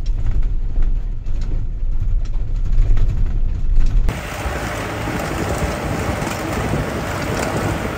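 Vehicle driving over a rough, stony dirt road: a heavy low engine and road rumble with irregular jolts and rattles. About four seconds in it changes abruptly to a steady rush of wind and tyre noise.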